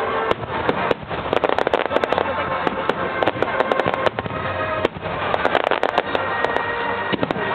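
Aerial fireworks in a finale barrage: a dense, continuous rattle of sharp cracks and pops, with music playing underneath.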